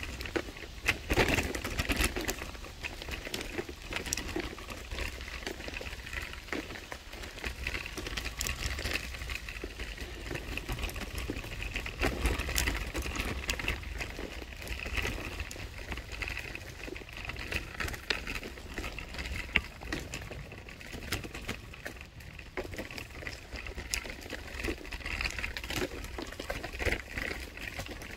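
Irregular crunching and clicking of a kick-propelled ride moving along a road, with a steady low wind rumble on the microphone.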